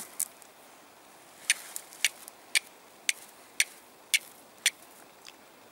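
C-shaped fire steel struck against a flint in a steady series of short, sharp strikes, about two a second, to throw sparks onto tinder. The last strike is fainter.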